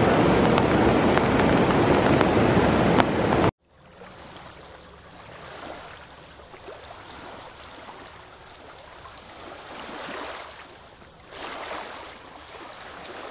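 Loud, steady rushing noise of running water, the river below the trail, for the first three and a half seconds. It cuts off abruptly and is followed by the fainter, steady rush of a distant waterfall, with small swells.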